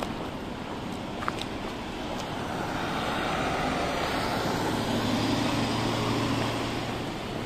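A passing vehicle: a low engine drone and road noise swell to their loudest about two-thirds of the way through, then ease off near the end.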